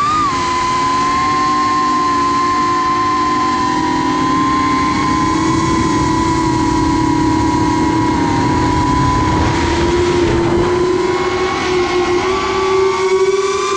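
Brushless motors and propellers of a 3-inch FPV quadcopter carrying a full GoPro 6 Black, heard from the onboard camera in flight: a steady high whine over a lower hum with wind rush, rising slightly in pitch near the end as the throttle goes up.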